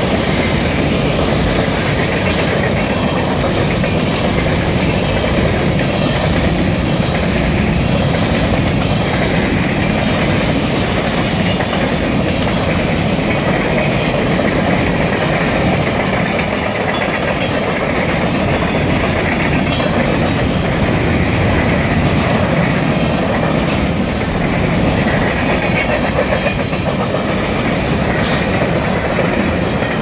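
Freight cars of a long mixed manifest train rolling past at speed: a steady, loud rumble and clatter of steel wheels on the rails.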